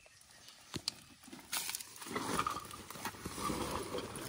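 A couple of sharp clicks, then from about halfway a rustling and knocking as a backpack is rummaged through and a bag is pulled out.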